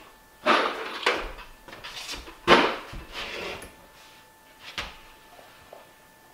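Knocks and scrapes of wooden cabinet framing being handled on a wooden floor, with footsteps: several separate bumps in the first few seconds, the loudest about two and a half seconds in, then it goes quiet.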